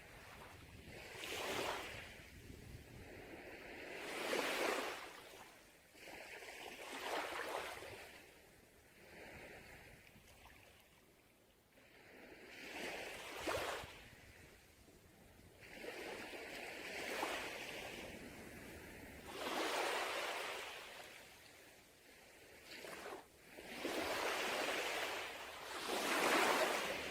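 Sea waves breaking on a beach: surges of surf swell and wash back every two to four seconds, with a loud break near the end.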